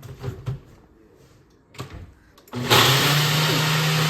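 Countertop blender blending a piña colada mix: a short, loud burst of the motor starting about two and a half seconds in and cutting off near the end, after a few light knocks.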